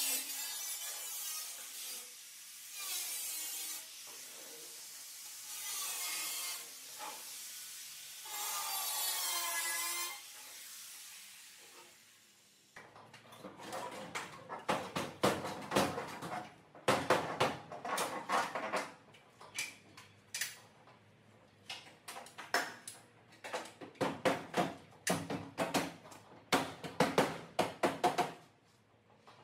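Handheld corded angle grinder working the edge of a sheet-metal replacement rear body panel in about four short passes, its pitch wavering under load. About halfway it gives way to an irregular run of sharp metallic knocks and clicks as the panel is fitted against the car's body.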